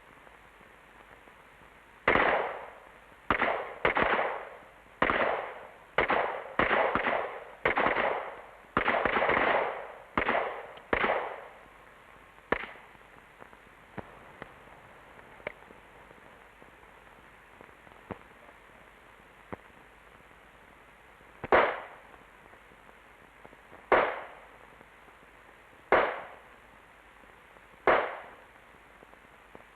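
Handgun shots on a pistol range during a timed combat-course string: about a dozen shots in quick, uneven succession over some ten seconds, then, after a pause, four single shots about two seconds apart. Each shot has a short echoing tail.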